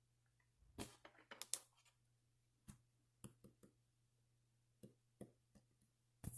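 Faint, scattered clicks and taps, about ten of them at irregular intervals over a low steady hum, in a quiet small room. A small cluster of them comes about a second in, and a louder pair comes near the end.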